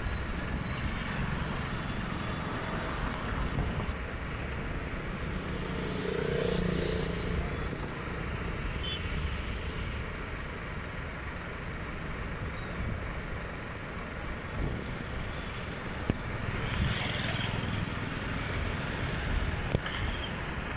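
Steady road traffic noise from vehicles crossing the bridge, a continuous low rumble with one louder pass about six seconds in.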